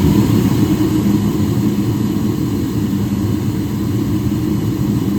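Car engine running loudly with a dense, steady exhaust rumble, most likely the Toyota Starlet GT's.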